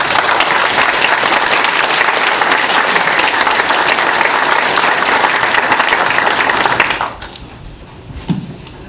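Audience applauding, many people clapping at once, dying away quickly about seven seconds in.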